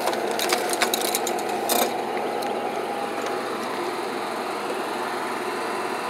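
An engine idling steadily, with a quick run of sharp clicks in the first two seconds.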